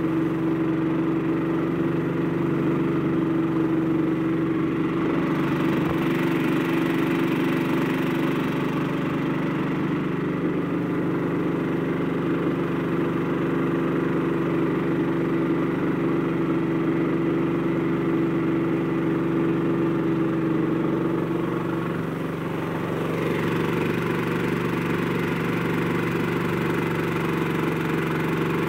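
Brand-new Honda 13 hp single-cylinder four-stroke engine running steadily, with a brief dip in level about three-quarters of the way through.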